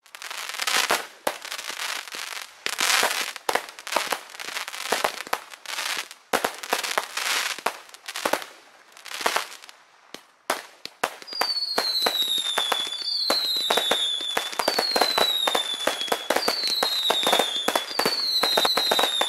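Fireworks crackling and popping in dense bursts. From about halfway, a falling whistle repeats every second and a half or so over the crackle.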